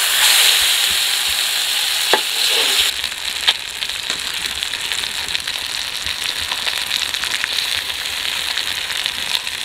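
A whole masala-coated fish sizzling in hot oil on a flat pan as it is turned over with a ladle. The sizzle is loudest for the first few seconds after the turn, then settles to a steadier, slightly quieter crackling sizzle, with a few light clicks along the way.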